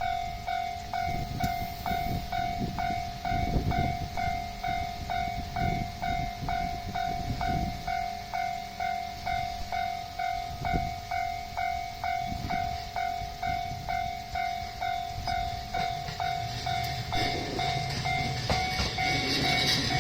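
Japanese level-crossing warning bell ringing steadily at about two dings a second, the signal that a train is approaching. Near the end, the running noise of an E131-series electric train grows as it reaches the crossing.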